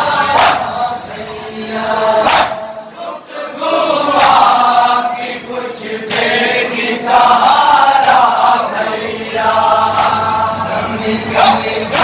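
A group of men chanting a Shia nauha (lament) together in Urdu, in a slow, mournful melody. Sharp slaps of hands beating on chests (matam) fall every couple of seconds.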